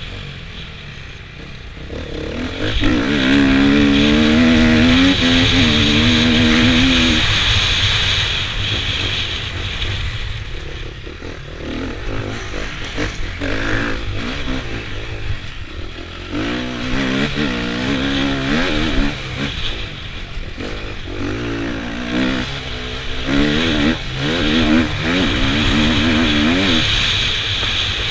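KTM 250 EXC two-stroke enduro motorcycle ridden hard, heard from the rider's helmet: the engine revs rise and fall with throttle bursts and gear changes, easing off for a while midway, over a steady rush of wind on the microphone.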